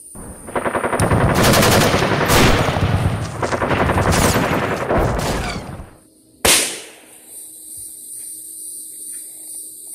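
Firecrackers going off on the ground: a rapid string of sharp cracks for about five seconds, then a single loud bang about six and a half seconds in.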